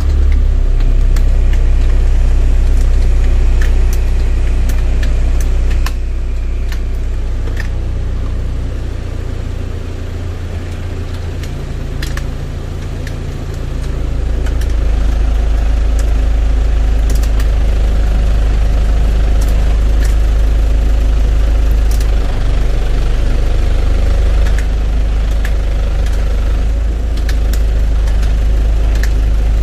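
Hyundai County minibus engine idling with a steady low rumble, with the cabin's heater/AC blower fan running. The blower's air noise drops about a fifth of the way in and swells again about halfway through as the fan-speed knobs are turned. Light clicks come now and then.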